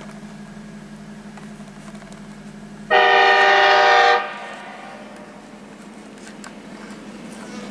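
Diesel locomotive horn on a grain train, one blast of a little over a second, a chord of several notes, warning of the train's approach to a road level crossing.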